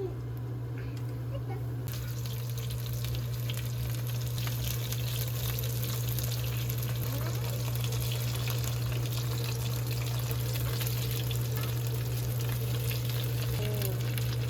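Steady hissing noise that sets in about two seconds in, over a constant low hum.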